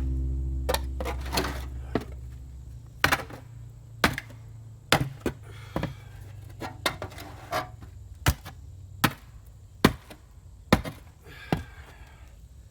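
Sharp blows of a tool striking wood, roughly one a second, in a steady working rhythm, with short rough scraping or splintering between some blows.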